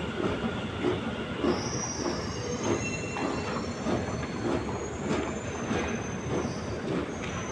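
Metro train running in the underground station, a steady rumble and clatter with a thin high-pitched wheel squeal coming in about a second and a half in.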